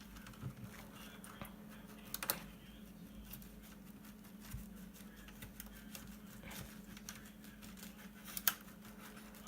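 Cloth worked between the bare switches of a mechanical keyboard with its keycaps off, giving faint scattered clicks and taps, two of them sharper, about two seconds in and near the end. A steady low hum runs underneath.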